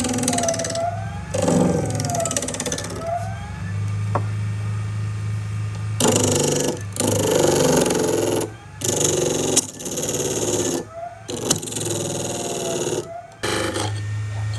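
Power tools working on wood: a steady motor hum, with several loud stretches of machining noise that start and stop abruptly.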